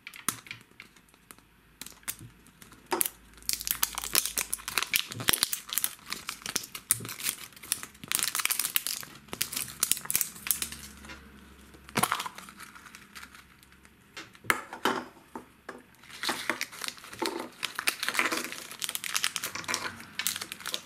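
Plastic shrink-wrap and packet wrappers crinkling and tearing in bursts as a plastic surprise-egg capsule is unwrapped, opened and its wrapped contents handled, with sharp plastic clicks among the crinkling.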